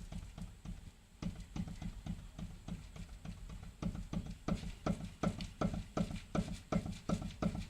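Rapid, regular knocking, about four to five sharp knocks a second, over a low steady hum. It stops briefly about a second in, then resumes and grows louder toward the end.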